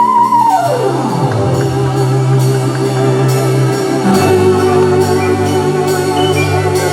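Live music: a held high note slides steeply down in pitch about half a second in, then sustained notes and chords continue, with the low notes changing about four seconds in.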